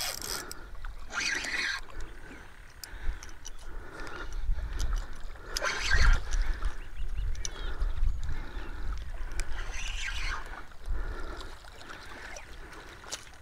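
A hooked fish splashing in shallow water as it is reeled toward the bank, in bursts about a second in, around six seconds and again around ten seconds.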